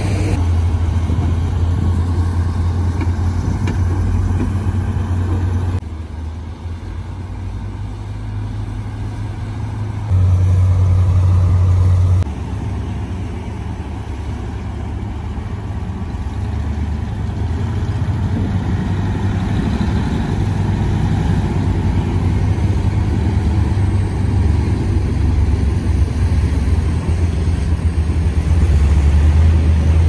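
Heavy truck's diesel engine running with a steady low drone as the truck pulls away carrying a tracked excavator on its bed. It is suddenly louder for about two seconds near the middle.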